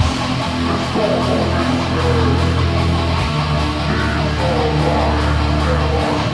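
Raw black metal recording: heavily distorted guitars and bass holding long chords over dense drumming, the low notes shifting every second or few.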